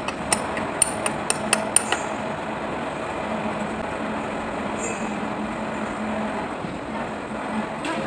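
Quick metallic taps and clinks, about eight in the first two seconds, then a steady background hum with no more strikes.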